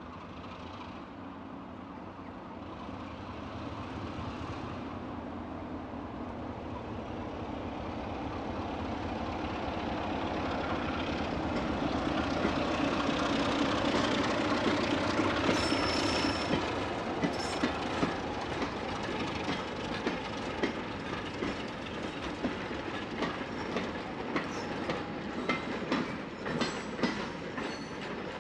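Class 33 diesel locomotive hauling a train of goods wagons past, its engine growing steadily louder as it approaches. After the loudest point, the wagons' wheels clatter over the rail joints in a run of sharp clicks, with a few brief high-pitched wheel squeals.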